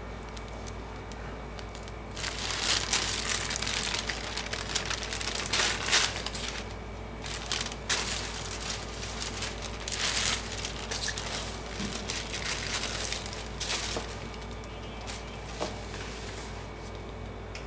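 Tissue paper crinkling and rustling as it is handled and lifted out of a sneaker box, in irregular loud flurries from about two seconds in, dying away near the end, over a steady low hum.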